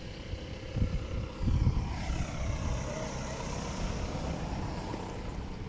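Muddy rainwater runoff flowing and rippling over gravel and stones in a shallow channel, a steady rushing hiss. Low gusts of wind buffet the microphone in the first two seconds.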